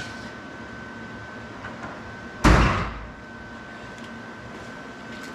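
A single loud bang about two and a half seconds in, dying away within about half a second, over a faint steady high whine.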